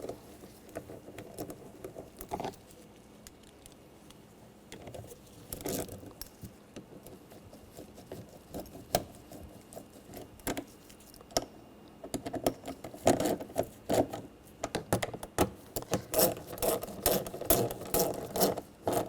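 Ratchet clicking in quick runs while tightening the screws that hold a car's interior door panel, sparse at first and then in rapid, steady runs for the second half.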